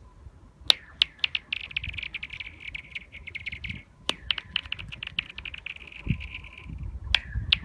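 Pebbles tossed onto thin frozen lake ice and sliding across it. Each one lands with a sharp click, then skitters on in a fast run of ticks over a high ringing tone from the ice. There are three such runs.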